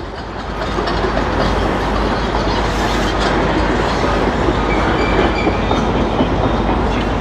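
Heavy truck hauling a trailer full of crushed hardcore and driving off: a steady engine and rolling rumble that grows louder about a second in, with rattling and clanking from the loaded trailer.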